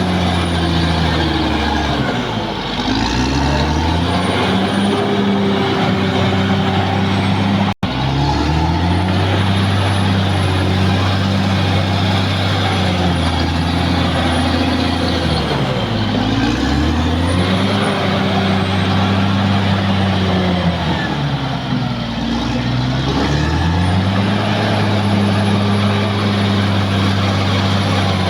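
Caterpillar D6R XL bulldozer's diesel engine running hard, its speed sagging and picking back up three times, with a faint high whistle above it. The sound cuts out for an instant about eight seconds in.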